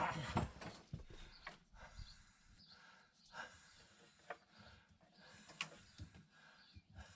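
Faint, scattered clicks and light knocks from parts being handled while the gear shift linkage is set with a wooden spacer block.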